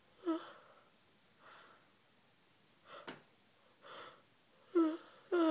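A woman yawning: soft breathy inhales and exhales, with short voiced sighs that fall in pitch about a quarter second in and near the end, the last one starting a longer drawn-out yawning sound. A faint click about three seconds in.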